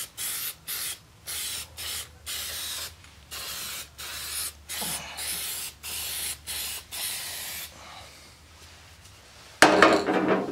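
Aerosol spray-paint can spraying primer onto a lawn tractor wheel in many short hissing bursts over the first eight seconds. A sudden loud knock and rustle comes near the end.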